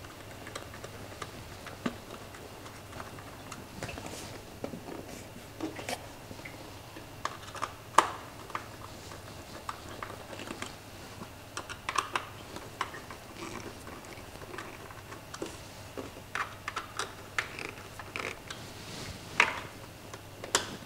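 Irregular small clicks and taps as screws are worked into the plastic bezel of a motorcycle headlight guard, the sharpest about eight seconds in and another near the end, over a low steady hum.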